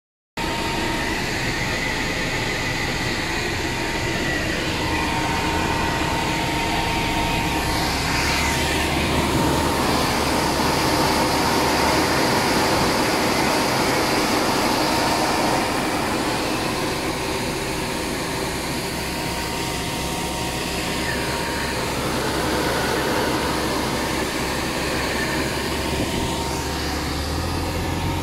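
Road-sweeper truck running: a steady mechanical rush of its machinery with a thin, steady whine, swelling slightly partway through.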